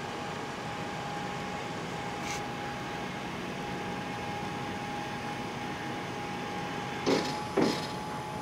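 Electric Raymond narrow-aisle reach truck lowering its mast and forks, with a steady whine and a hum under it. Two short clunks come close together near the end.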